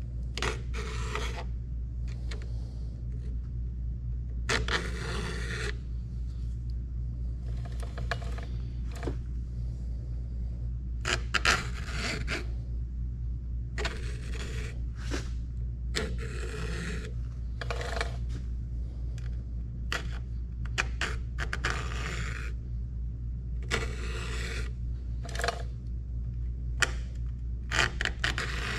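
Hand file scraping the sides of the rakers (depth gauges) on a full-chisel 33RS saw chain clamped in a vise. Short rasping strokes come one at a time with pauses between, over a steady low hum.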